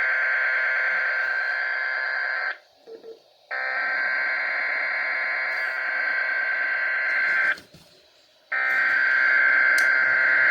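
SAME digital header bursts of an emergency weather alert from a weather radio: three identical harsh buzzing data bursts, each about two and a half to three seconds long, separated by about a second of silence. They mark the start of an alert broadcast, just ahead of the alert tone.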